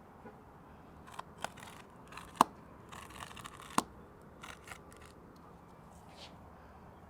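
Building wrap being sliced and handled: short crinkling rustles with a few sharp clicks, the loudest about two and a half seconds in and another near four seconds.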